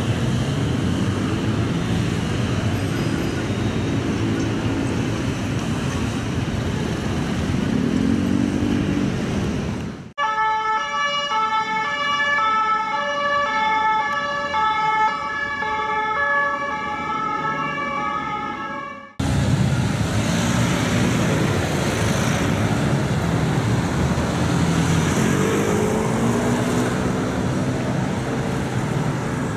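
Street traffic noise, then for about nine seconds a French two-tone police siren stepping back and forth between its two notes, then a heavy police truck's engine running with its pitch rising once near the end.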